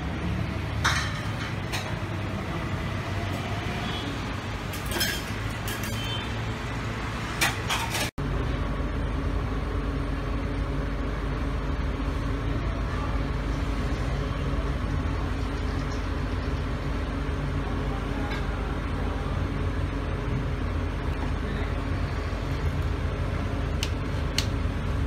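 Steady low hum of the refrigeration compressor that chills a roll-ice-cream cold plate. It follows a cut about eight seconds in; before the cut there is room noise with a few sharp clicks, and a couple of light ticks come near the end.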